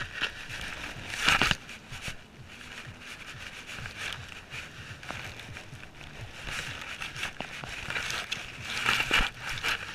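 Leaves and grass rustling and scraping against a dog-mounted GoPro as the dog pushes its way through plants, with crackles and brushing hisses that are loudest about a second in and again near the end.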